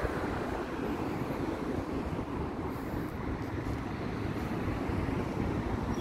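Steady low outdoor rumble of street traffic, with no clear single event.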